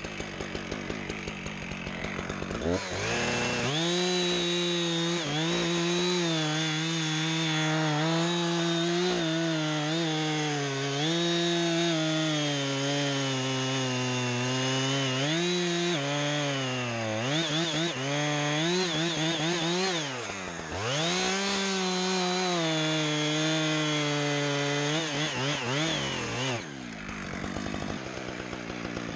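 Gas chainsaw idling, then throttled up to full revs about three seconds in and cutting into the base of a spruce trunk. Its pitch sags and recovers as the chain bites under load, most deeply a few times past the middle. It drops back to idle near the end.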